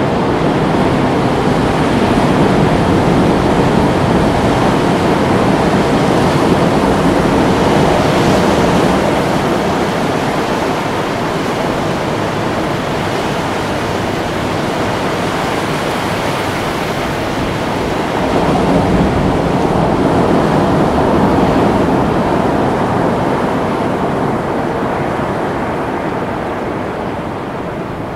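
Ocean surf: a steady wash of breaking waves that swells louder a couple of seconds in and again about two-thirds of the way through.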